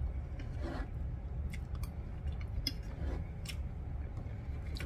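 Eating sounds: a fork scraping and clicking against a plate, with chewing, giving a few short clicks and scrapes scattered over a low steady hum.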